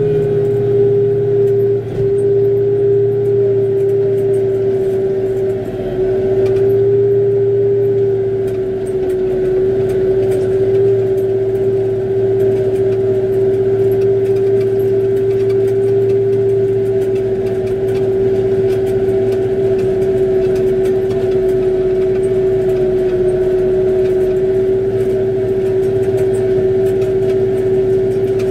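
Kubota tractor's diesel engine running steadily with its front-mounted snowblower engaged and throwing snow, a steady high whine riding over the engine note.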